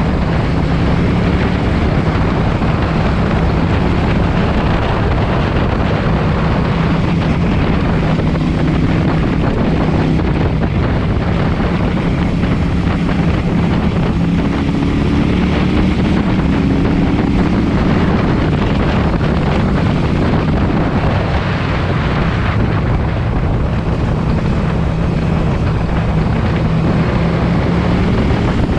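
KTM 790 Duke's parallel-twin engine running through an SC-Project aftermarket exhaust while riding, its note rising and falling with the throttle, with wind buffeting the microphone.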